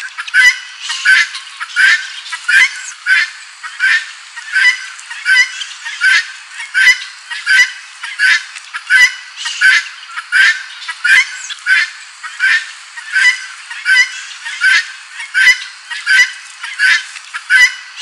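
Helmeted guineafowl calling its 'tô-fraco' call over and over in a steady rhythm, about three calls every two seconds.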